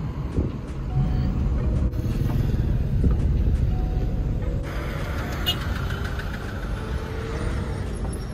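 Road noise inside a moving car: a steady low rumble of engine and tyres, shifting abruptly about two and five seconds in.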